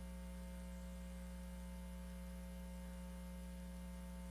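Steady electrical mains hum, a low buzz with fixed overtones and nothing else in it: the live crowd sound has dropped out of the audio feed.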